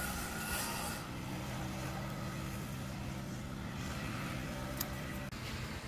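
Light rubbing and crackle of masking tape being pressed down by hand over a metal VIN tag during the first second, over a steady low hum, with a small click near the end.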